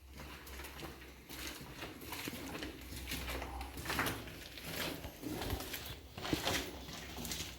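Footsteps of people walking through an underground shelter tunnel: irregular scuffs and crunches over a steady low rumble.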